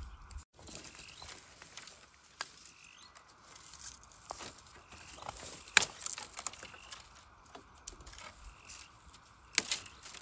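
Dry bamboo stems and leaves crackling and knocking as they are pulled and pushed aside by hand, with a sharp snap a little before the middle and a couple more near the end.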